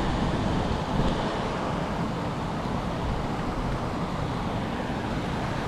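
Wind buffeting the microphone: a steady rushing noise, heaviest in the low end, with no distinct events.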